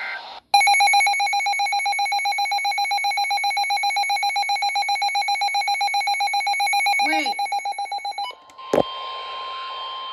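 Midland handheld NOAA weather radio sounding its alert alarm: a loud, rapidly pulsing beep that cuts off suddenly after about eight seconds. After a click, a quieter steady single tone over radio hiss begins: a weather radio's warning alarm tone.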